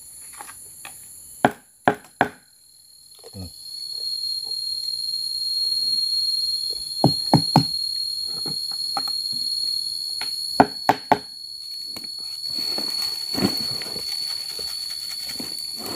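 An insect's steady high whine, one shrill tone, swells in about three seconds in and keeps going. Over it come sharp clicks in little clusters of two or three, from plastic plates and food containers being handled during a meal.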